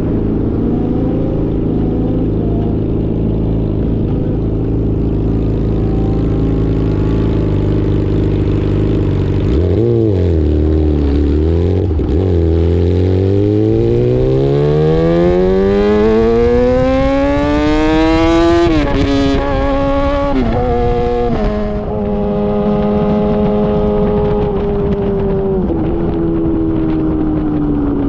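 Yamaha R6's inline-four engine through an SC Project titanium exhaust, loud: running steadily, then about ten seconds in it climbs through the revs in one long rising pull and drops in pitch three times in quick succession as it shifts up, settling into steady running with one more shift near the end.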